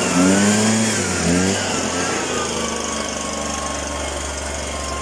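Small engine of a power sprayer running steadily, a low hum with a thin steady whine, as the misting wand sprays. A voice is heard over it in the first second and a half.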